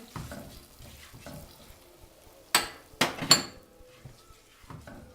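Whole spices and curry powder frying quietly in oil in a pot while being stirred, with three sharp metallic clinks of the spoon against the pot about halfway through.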